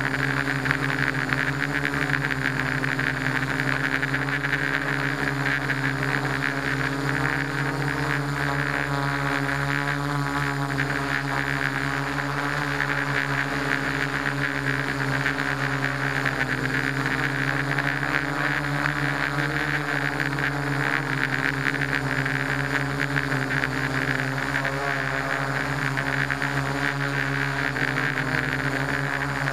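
Electric motors and propellers of a multirotor drone running steadily in flight: a constant whine at an even pitch, picked up close by the drone's onboard camera.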